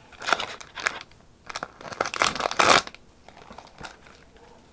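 Packaging crinkling and tearing as it is handled, in two bursts, the longer and louder one about two seconds in, then quieter.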